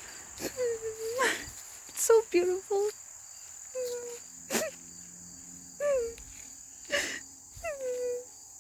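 Steady high-pitched chorus of crickets or katydids. Over it come several short pitched calls that bend and fall, and a few sharp clicks.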